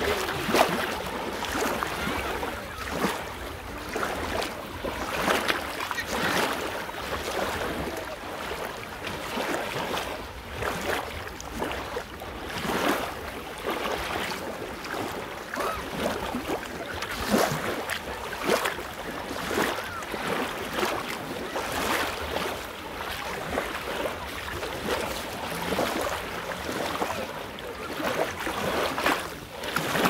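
Small sea waves washing up and draining back over coarse sand and fine shingle at the water's edge, a fizzing, crackling wash that swells and ebbs every second or two.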